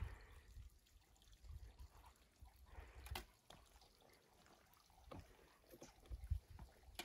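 Near silence, with a few faint scuffs and soft thumps of footsteps on sandstone.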